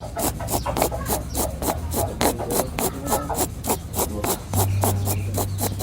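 A rabbit's snoring breath: rapid, regular rasps, about six a second, over a steady low hum. The noisy breathing is a sign of a respiratory infection (rabbit flu).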